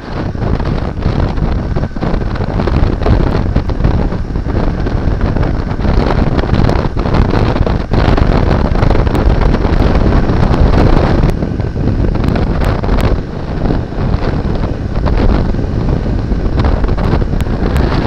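Heavy wind noise buffeting the microphone of a camera riding on a Yamaha XT225 motorcycle at highway speed, with the bike's engine and road noise running underneath.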